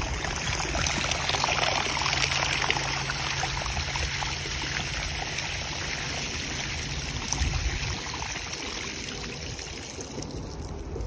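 Legs wading through deep floodwater, with steady sloshing and splashing that eases a little near the end.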